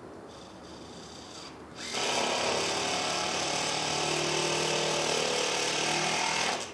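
A power tool runs steadily for about five seconds, starting about two seconds in and cutting off near the end.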